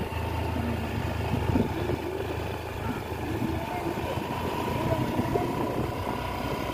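Vehicle engine running steadily while driving along, a constant low hum with a faint steady whine above it.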